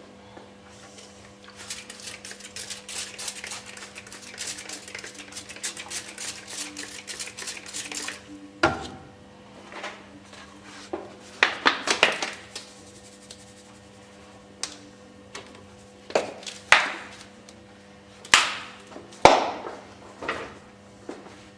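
Glass telescope mirror blank being ground, with a dense gritty scraping for several seconds. This is followed by a series of separate sharp clanks and knocks of glass and tools being handled. A steady low hum runs underneath.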